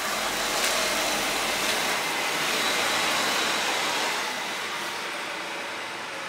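Setra coach driving past close by and pulling away, its engine and tyres on wet road steady for about four seconds, then fading as it moves off.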